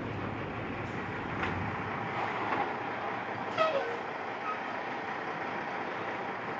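Queensland Rail heritage diesel locomotive 1461 running steadily as it moves slowly along the track. A few short sharp sounds stand out above it, the loudest about three and a half seconds in.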